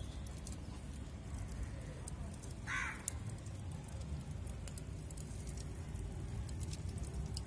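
Charcoal burning in a clay flower-pot grill: scattered faint crackles over a steady low rumble, with one brief higher squeak about three seconds in.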